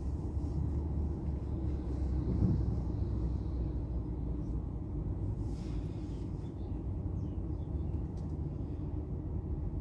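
Steady low rumble of a car in motion, engine and tyre noise heard from inside the cabin.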